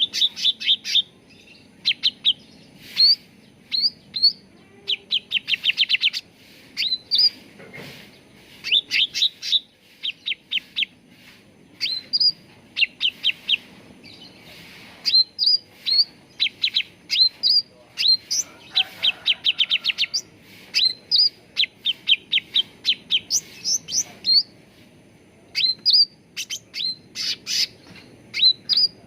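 Cucak ranting songbird singing continuously: rapid bright chirps that slur upward, broken by quick runs of repeated notes, with hardly a pause.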